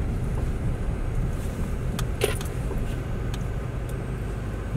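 Car running, heard from inside the cabin as it moves slowly: a steady low engine and road rumble, with a few light clicks and rattles about two seconds in.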